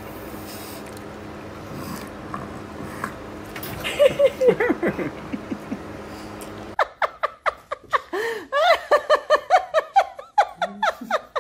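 People laughing: a short bout of chuckling about four seconds in, then from about seven seconds on a fast run of giggles in quick, short bursts.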